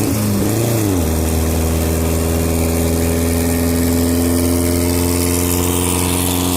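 1973 VW Beetle's air-cooled flat-four engine with a 4-into-1 exhaust, given a quick blip up and back down about half a second in, then idling steadily.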